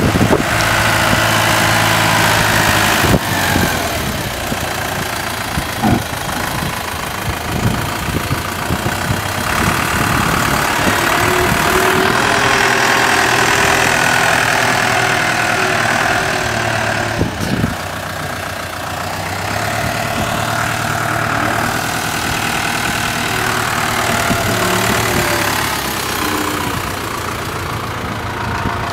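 Case IH Farmall 95 tractor's diesel engine idling steadily.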